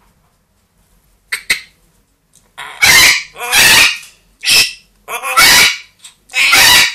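Pet parrot screaming: a short harsh call about a second in, then a run of about five loud, raspy squawks, each lasting about half a second.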